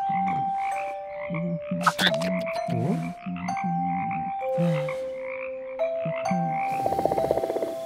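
Many frogs croaking: low croaks repeating in short pulses, with a faster rattling croak near the end.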